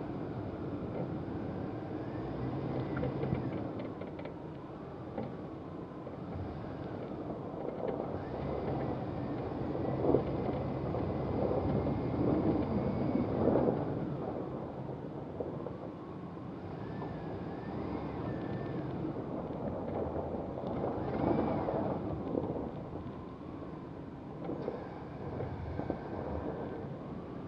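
Vehicle engine running, its whine slowly rising and falling in pitch, over a steady rumble with some wind noise.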